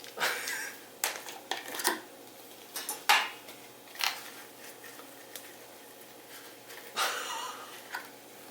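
Dishes and utensils clinking and clattering in several short bursts, the loudest about three seconds in.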